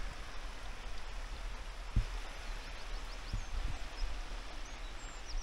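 Faint outdoor ambience: a steady hiss with a low rumble, a single low bump about two seconds in, and a few faint high bird chirps in the second half.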